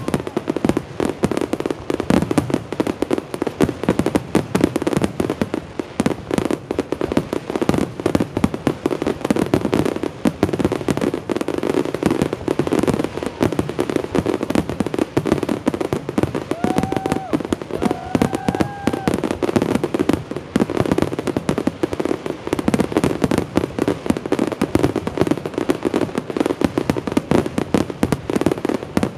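Aerial fireworks firing in a dense, unbroken barrage of bangs and crackles, one hard on the next: the grand finale of a large pyrotechnic display.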